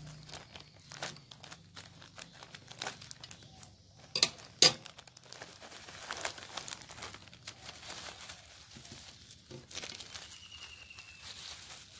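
A plastic courier mailer being snipped with scissors and pulled open by hand, its plastic crinkling and crackling throughout, with two sharp loud snaps about four seconds in. Near the end, a bubble-wrapped packet rustles as it is drawn out.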